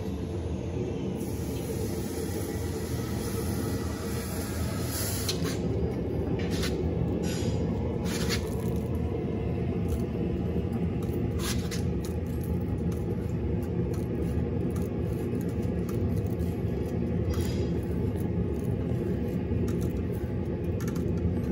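Steady roar of a gas forge, with a few sharp metallic clinks as tongs and a bending fork work a hot steel bar at the anvil.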